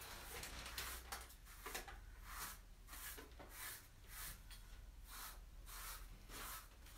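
Paintbrush strokes working a thick SpreadStone stone coating, flecked with stone chips, into a countertop: faint, repeated scrubbing strokes about twice a second.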